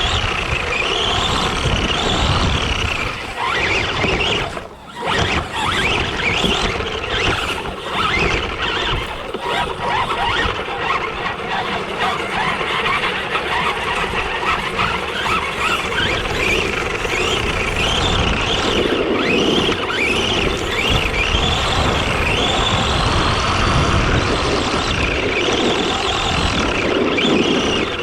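Arrma Granite 4x4 RC truck's electric motor and drivetrain whining as it is driven hard, the pitch rising and falling again and again with the throttle over the rough noise of the tyres. It drops off briefly about five seconds in, then picks up again.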